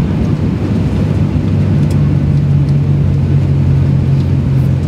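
Cabin noise of a Boeing 737-800 rolling along the runway after touchdown, heard from a window seat beside the engine: a loud, steady low rumble, with a low hum from the CFM56-7B engine that comes up about a second and a half in.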